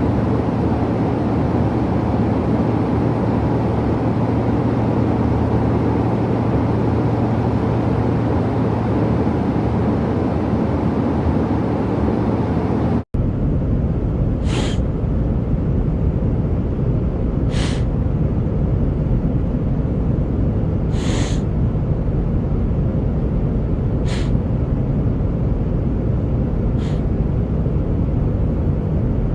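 Steady aircraft cabin drone, and in the second half a sick man sniffles five times, one short sharp sniff about every three seconds. The recording drops out for an instant about halfway, just before the sniffs begin.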